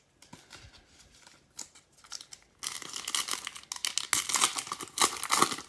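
A trading-card pack wrapper being torn open and crinkled by hand: light rustling at first, then about three seconds of loud crinkling and tearing.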